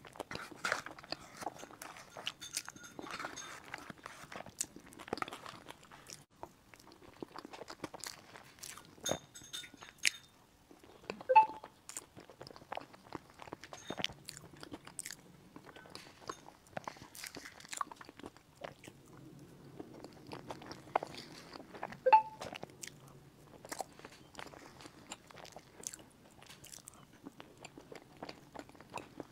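Close-miked eating of a milk-brick cake topped with crushed chocolate cookie crumbs: bites, chewing and crunching with many small wet clicks. Two sharper, ringing clicks stand out, about a third and about three quarters of the way through.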